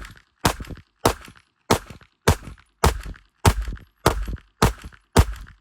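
Handgun shots fired in a steady rhythm, about one every 0.6 seconds, nine in all, each a sharp crack with a short echoing tail.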